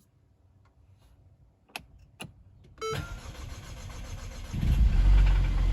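Mercedes-Benz M270 2.0-litre turbocharged four-cylinder engine being started: two sharp clicks, then the starter cranks for about a second and a half before the engine catches about four and a half seconds in and runs loudly.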